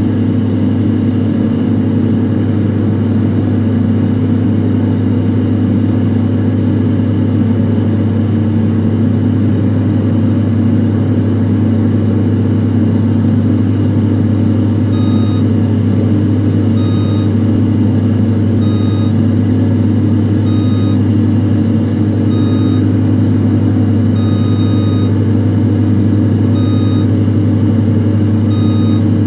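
Steady drone of data-centre server racks, their cooling fans running with a strong low hum and several steady whining tones above it. About halfway through, a short high-pitched electronic beep starts repeating roughly every two seconds over the drone.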